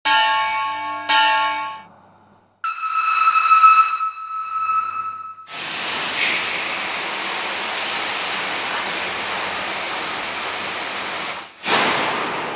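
Two ringing notes, then a steady high whistle-like tone for about three seconds. After that, a loud, steady hiss of compressed air from the large 1932 double-acting diesel engine, which breaks off briefly near the end and comes straight back.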